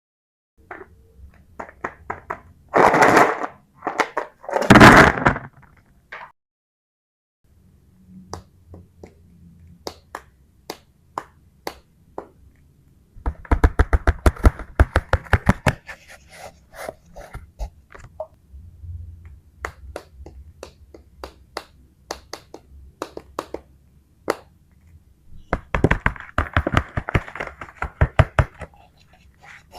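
Small plastic toy figures and kinetic sand being handled: a string of taps, clicks and scrapes, with two louder rushes of noise a few seconds in and two runs of rapid clicking later on.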